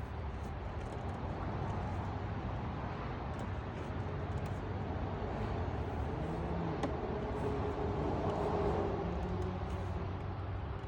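Steady low rumble of motor traffic, swelling a little about six to nine seconds in as a vehicle passes, with faint scattered clicks.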